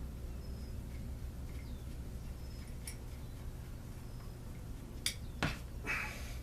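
Small parts being handled: a few sharp clicks and a short scrape over a low steady hum.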